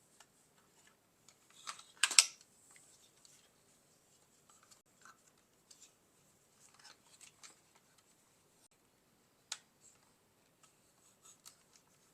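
Hands working wires and small plastic parts inside an opened Roomba i7 robot vacuum: scattered rustles, scrapes and clicks. The loudest scrape comes about two seconds in, and there is a sharp click about three-quarters of the way through.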